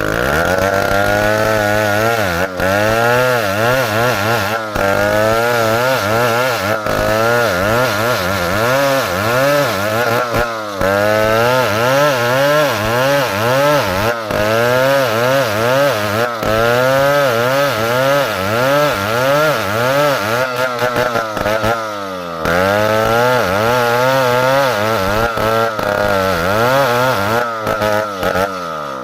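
Chainsaw running under load as it cuts through wood, the engine pitch rising and falling every second or two as the chain bites and frees. The engine briefly drops about three-quarters of the way through and again at the end, then picks up.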